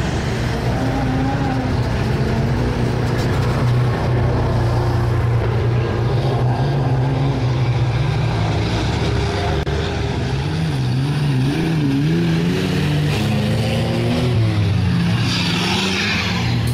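Off-road race car engines revving, their pitch rising and falling as the cars run on the dirt track. A short rushing hiss comes in near the end.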